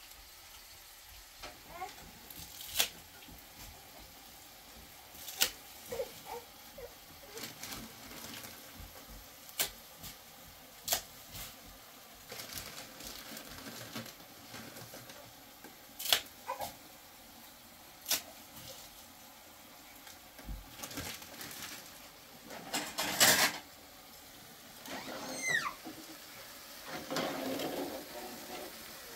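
Kitchen cookware clinking and clattering at a gas stove: scattered sharp knocks of pans, lids and utensils, with a louder second-long rush of noise about three-quarters of the way through.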